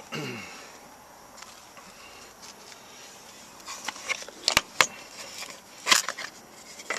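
Metal Zippo lighters being handled: a few sharp clicks and clinks in the second half, the loudest near the end.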